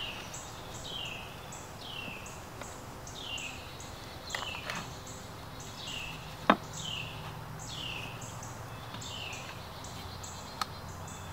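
Cord being wrapped around two wooden sticks, with a few soft taps and one sharp tap about halfway through. Behind it, a high chirp falling in pitch repeats about once every three-quarters of a second.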